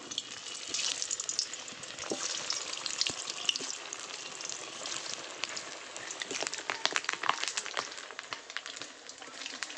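Whole boiled potatoes frying in hot oil in a metal kadai: a steady sizzle with frequent sharp crackling pops, thickest a little after halfway.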